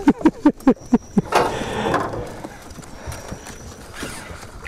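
A rapid, uneven run of hollow knocks on an aluminium fishing boat's deck and hull, about eight in the first second and a bit, followed by a short noisy rush.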